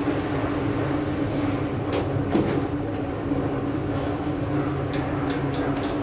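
1985 KONE inclined elevator cab in travel: a steady drive hum with a constant low tone, broken by a few sharp clicks and knocks about two seconds in and several more in the second half.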